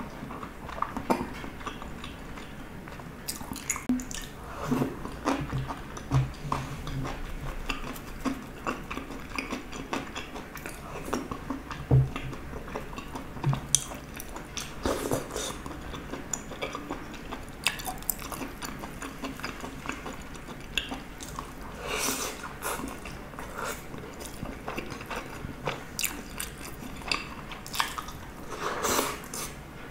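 A person eating close to the microphone: chewing and mouth sounds, with an orange plastic spoon and chopsticks scraping and tapping against plastic food containers and a small bowl. The sounds come as scattered short clicks and smacks, with a louder knock about 12 seconds in.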